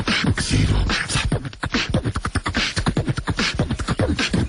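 Fast beatboxing: a human voice making a quick, unbroken run of clicks and percussive beats with no words.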